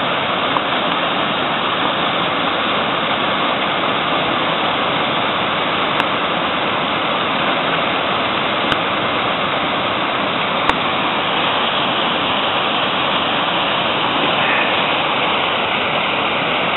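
Mountain stream cascading in small waterfalls over boulders: a steady, even rush of water. Three faint clicks in the middle.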